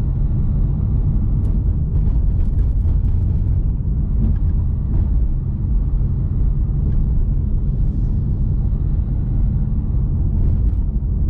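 Car driving along a road, heard from inside the cabin: a steady low rumble of engine and tyre noise, with a few faint clicks.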